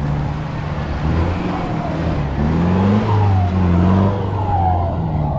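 Off-road 4x4 truck engine revving under load, its pitch climbing twice, loudest about three to four seconds in.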